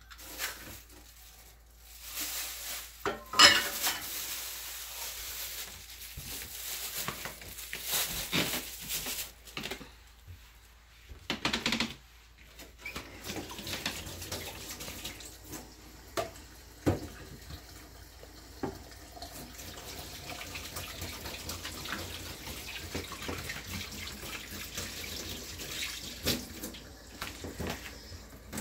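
Kitchen tap running into a sink, with dishes and utensils knocking now and then; one sharp knock about three seconds in, and the water stops briefly about ten seconds in.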